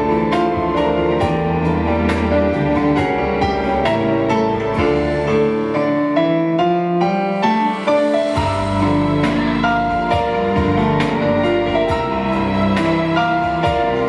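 Instrumental backing music with sustained melody notes over a steady beat; the low bass drops out for a couple of seconds about halfway and then comes back.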